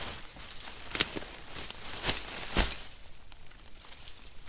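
Rustling through brush and dry leaf litter, with three sharp cracks about one, two and two and a half seconds in.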